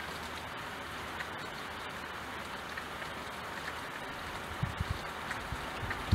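Steady rain pattering on a window pane, an even hiss with a few separate drips ticking. About four and a half seconds in, low rumbling thumps join it.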